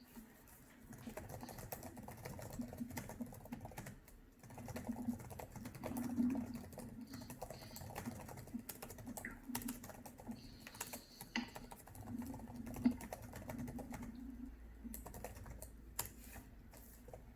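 Computer keyboard typing: irregular light key clicks over a steady low hum.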